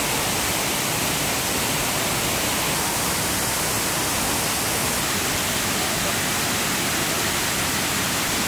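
Ban Gioc Waterfall's many cascades: a steady, even rush of falling water, shifting slightly in tone a few seconds in and again around the middle.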